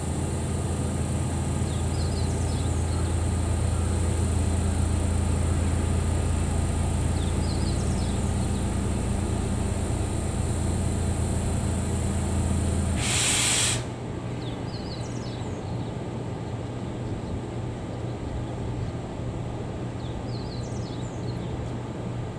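EH200 electric freight locomotive standing still with its onboard machinery giving a steady low hum and a faint high whine; a little over halfway through the machinery cuts out with a short burst of hissing air, leaving a quieter hum.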